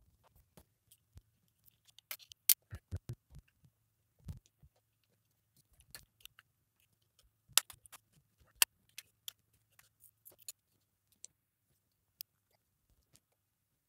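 Knife blade prying open the casing of a Samsung portable SSD: scattered scraping and clicking, with three sharp clicks as the case gives.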